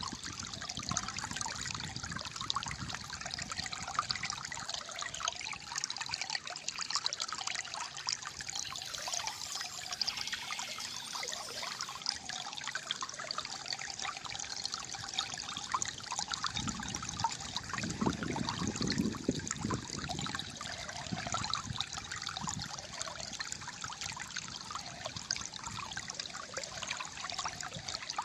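Shallow flowing water trickling and gurgling steadily, with a deeper, fuller gurgle for a few seconds past the middle.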